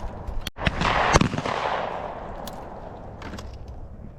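Shotgun firing at skeet, with a loud shot about a second in followed by a long fading echo. Fainter, distant shots crack later on.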